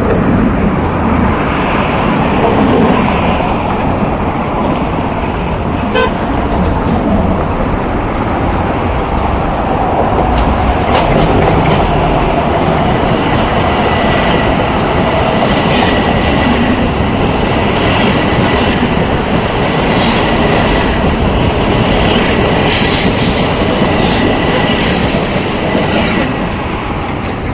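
Metro-North electric commuter train approaching and running past below, a steady loud rumble of wheels on rail with repeated clicks over the rail joints as the cars go by. The noise eases slightly near the end as the train draws away.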